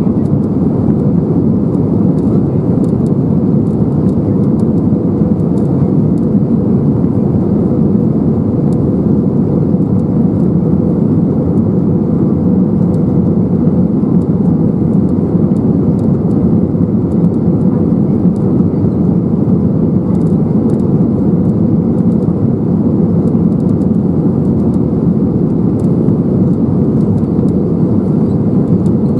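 Steady cabin noise inside an Airbus A320neo on descent: a deep, even rush of airflow and Pratt & Whitney PW1100G geared-turbofan engines, heard from a window seat over the wing.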